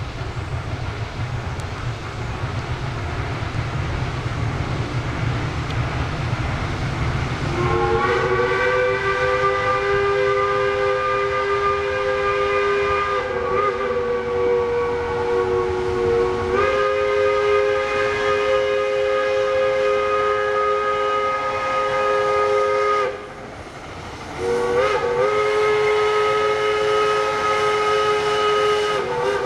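Steam locomotive whistle, from a geared logging locomotive approaching on the line, blowing long blasts over a low rumble. The whistle sounds a chord of two close notes held for about fifteen seconds with slight shifts in pitch, breaks off briefly, then sounds again near the end.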